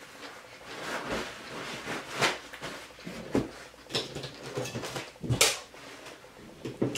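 Close-up chewing of a crunchy fried pork-rind (chicharrón) tostada, with a series of sharp crunches between softer chewing; the loudest crunch comes about five and a half seconds in.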